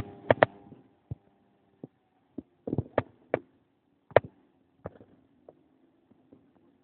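A series of irregular sharp knocks and clicks, about a dozen spread unevenly, with a faint steady hum underneath.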